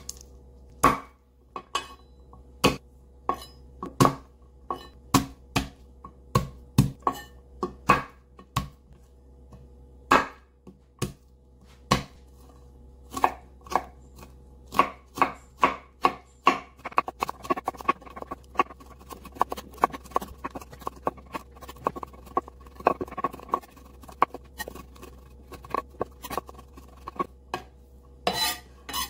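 Chef's knife chopping garlic cloves on a wooden cutting board: sharp knocks of the blade on the board, spaced out at first, then coming faster and closer together from about halfway through as the garlic is minced.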